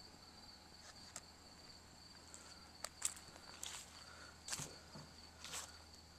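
Faint footsteps crunching at an uneven pace over a steady high trill of crickets.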